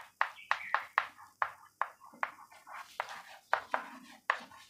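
Chalk writing on a blackboard: a quick, irregular run of short, sharp taps and scrapes, about three a second, as a word is chalked out letter by letter.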